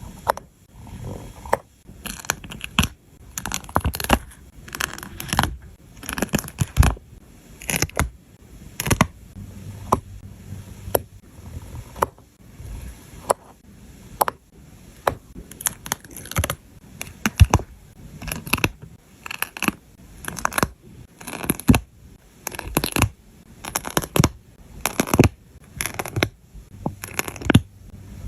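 Close-up handling sounds from sticker-scene crafting: irregular sharp taps and clicks with short scrapes and rustles, several a second, as sticker pieces and sheets are handled, peeled and pressed down.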